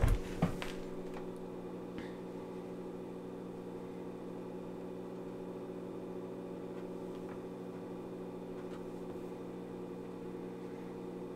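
Steady electrical hum made of several tones at once, from a Victron inverter-charger charging the battery bank. A couple of sharp knocks sound in the first half-second.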